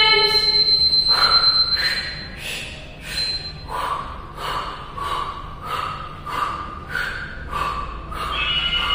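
A woman breathing hard from exertion during an ab exercise: short, forceful exhales about twice a second, louder in the first couple of seconds and softer after. A faint steady high whine runs until about two seconds in.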